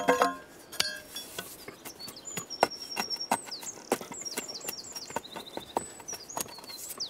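The end of a wooden tool handle jabbed down again and again into loose soil, tamping the earth backfill behind a course of facing stones so that it packs in solid. It gives dull, irregular knocks, with a few clinks against stone near the start.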